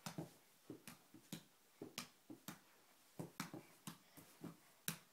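A small ball slapped back and forth by hand and bouncing on carpet: a quick series of short, sharp taps, about two a second.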